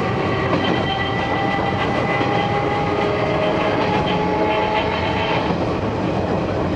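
Enshu Railway 30 series electric train under way, its nose-suspended traction motors and gears whining in several tones over the running noise of the wheels on the rails.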